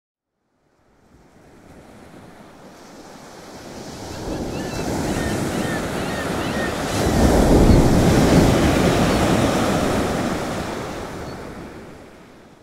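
Ocean surf: a wash of breaking waves that fades in, swells to its loudest around the middle and fades away again. A few faint high cries sound over it in the first half.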